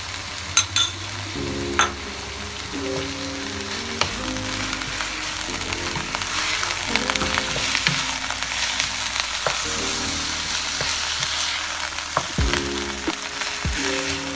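Minced chicken sizzling as it fries in oil in a karahi, with a spatula stirring and scraping against the pan now and then. The sizzle grows louder in the middle. Soft background music plays underneath.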